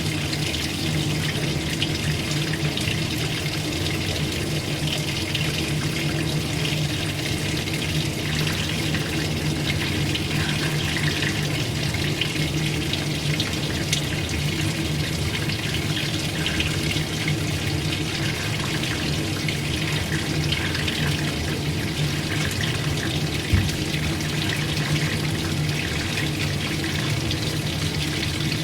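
Old-style washing machine running: a steady low motor hum under continuous running, splashing water. One short knock comes late on.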